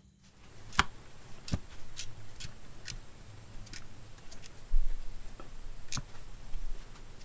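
Ratchet on the crankshaft pulley bolt clicking slowly, single clicks roughly every half second, as the crankshaft of a Honda 3.5L V6 is turned by hand to line up the timing marks. A dull thump about two-thirds of the way through.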